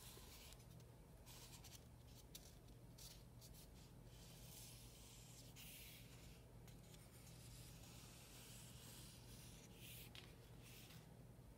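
Faint scratching of a marker drawn along the edge of a paper template onto styrofoam, in short strokes of a second or so, over a low steady hum.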